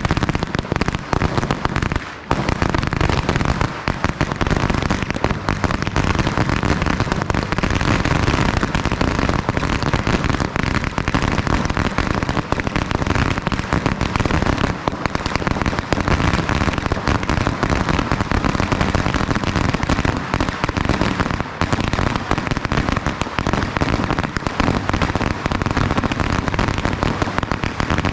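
F3 firecracker chain (Knallkette) of 50,000 shots going off: a dense, rapid, continuous stream of bangs with no gaps except a brief dip about two seconds in.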